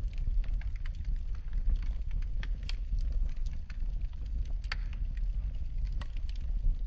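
Wood fire burning in a fireplace, irregular sharp crackles and pops, the loudest about two thirds and halfway through, over a steady low rumble of the flames.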